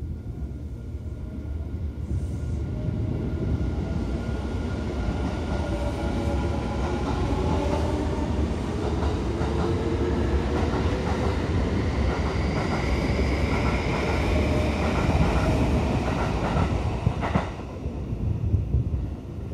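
Electric commuter train running along the platform as it accelerates: its motors whine in several tones that slide apart in pitch over a rumble of wheels on rail, growing louder. Near the end the sound drops away suddenly.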